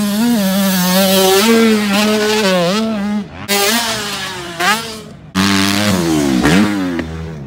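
Dirt bike engine revving on a motocross track, its pitch rising and falling with the throttle and gear changes. It drops away briefly, then comes back suddenly louder about five seconds in with sharp revs up and down.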